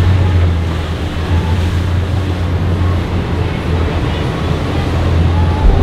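Motor yacht's engines running with a steady low drone as the hull drives through choppy water, over a constant rush of spray and waves.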